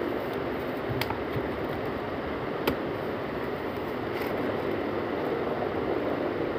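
Cardboard packaging being handled and pulled open by hand, with two sharp crackles, over a steady background noise.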